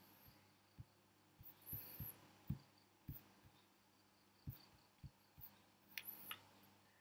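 Near silence, broken by faint, irregular low thuds and a sharper click about six seconds in, the handling noise of someone working a computer on a desk to change slides.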